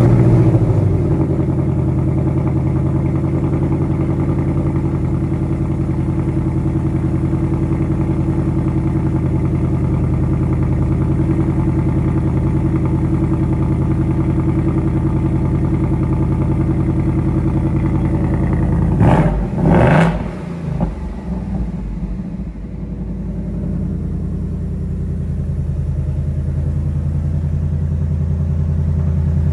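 Ford 2024 Mustang GT's 5.0 V8 idling steadily just after being started, with two quick revs about two-thirds of the way through, then idling on.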